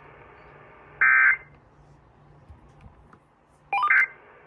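Weather radio's Emergency Alert System SAME data burst, a short harsh electronic tone about a second in, the end-of-message code after a warning broadcast, over faint radio hiss. Near the end a brief, quickly rising run of electronic beeps.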